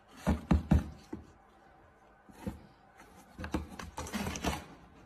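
Dull knocks and scraping on a cardboard box from a cat moving inside it and pawing at the slot: three quick knocks in the first second, then a looser cluster of scrapes and knocks a few seconds in.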